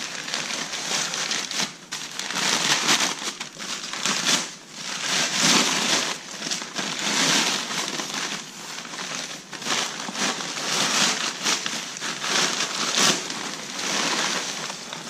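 Packing paper crinkling and crumpling in irregular surges, handled and pulled away in bunches as a part is unwrapped.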